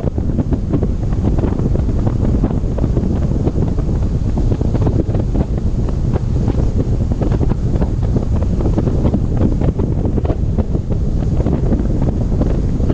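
Strong wind buffeting the microphone: a loud, steady low rumble with constant crackling.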